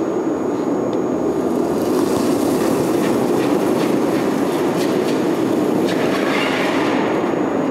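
Curling granite stone running down the pebbled ice with a low, train-like rumble, and brooms scrubbing the ice ahead of it from about two seconds in until near the end.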